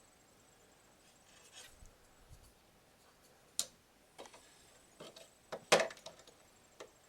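Scattered clicks and knocks of hands handling computer hardware, about half a dozen, with the loudest cluster about two-thirds of the way through.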